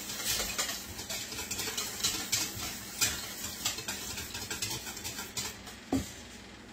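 A whisk beating eggs, milk and oil in a mixing bowl, clicking against the bowl's sides about three times a second and easing off toward the end, with one sharper knock near the end.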